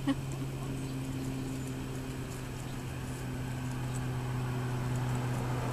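A steady low mechanical hum, growing slowly louder toward the end, with faint scattered clicks over it.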